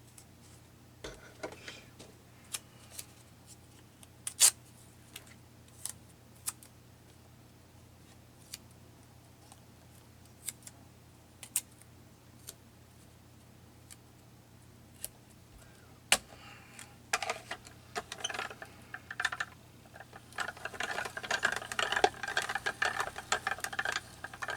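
Paper and small craft tools being handled on a tabletop: scattered sharp taps and clicks, then a busier stretch of rustling and clattering that starts about two-thirds of the way in and keeps up to the end.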